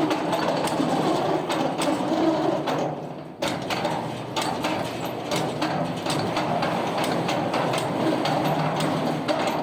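Heavy machinery running with a steady rattling hum and frequent sharp metallic clicks and knocks. The noise drops out briefly about three seconds in, then resumes.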